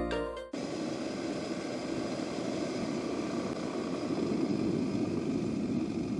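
Off-road motorcycle engine running steadily, a low, even noise with no clear pitch; intro music cuts off about half a second in.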